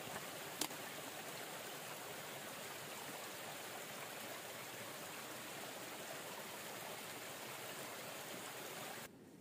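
Small mountain stream spilling over rocks in a little cascade: a steady rush of running water. A single sharp click sounds about half a second in, and the water sound cuts off abruptly near the end.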